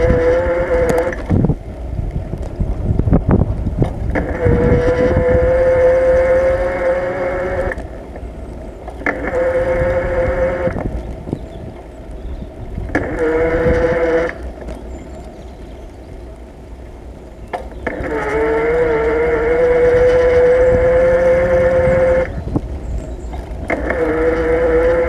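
Bicycle brakes squealing in a steady high whine that comes and goes in stretches of one to four seconds, over low rumbling road and wind noise between.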